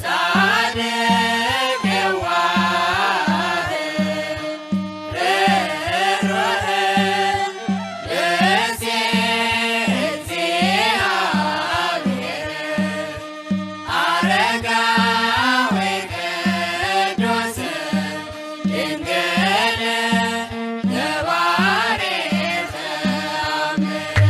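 Ethiopian Orthodox mezmur: a melody chanted in long phrases over a steady, even drum beat, with short breaks between phrases.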